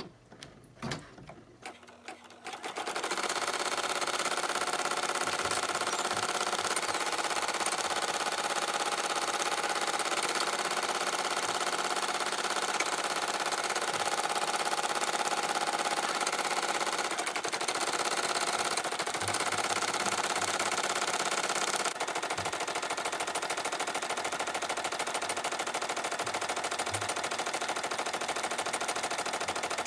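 Home embroidery machine sewing a satin-stitch border, a fast, steady needle rattle that starts about two and a half seconds in after a few faint clicks.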